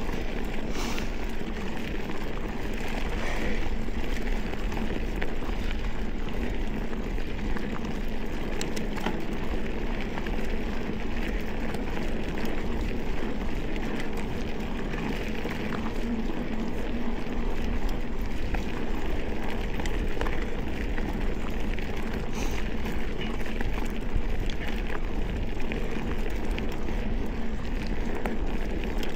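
Mountain bike rolling over a dirt and gravel trail: a steady rushing crunch of the tyres, with many small clicks and rattles from the bike.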